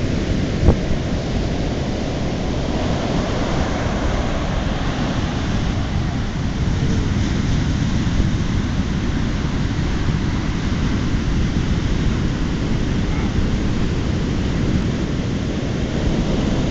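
Heavy hurricane-driven surf breaking and washing up the beach, a steady rush of noise with a deep low rumble from wind on the microphone.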